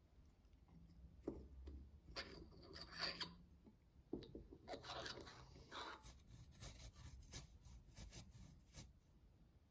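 Faint scraping and clinking of a metal spoon stirring a soy-sauce marinade in a small glass bowl, then, from about six seconds in, a quick run of rasping strokes as fresh ginger is grated on a fine rasp grater.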